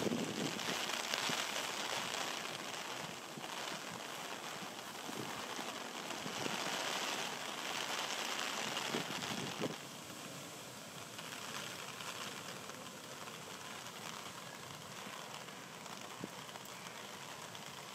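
Heavy rain falling: a steady hiss with a few sharper drop hits. It gets a little quieter about ten seconds in.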